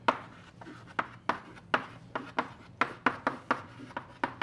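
Chalk on a blackboard as words are handwritten: a string of sharp, irregular taps and short scrapes, about three a second.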